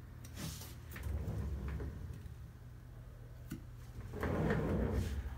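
Soft rubbing and handling noises from a glass facial suction cup with a rubber bulb being slid over oiled skin. There is a light click about three and a half seconds in and a louder rustle near the end.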